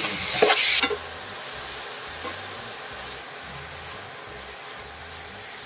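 Coconut and jaggery mixture sizzling in ghee in a pan, with a spoon scraping and stirring through it loudly for about the first second, then a steady sizzle as it cooks down.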